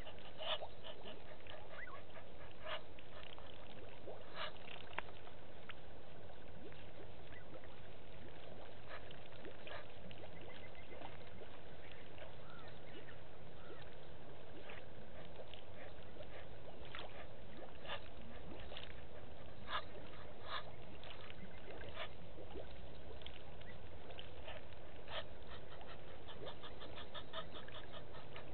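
Outdoor bush ambience: a steady background hiss with scattered short bird chirps and calls throughout, including a quick run of them near the end.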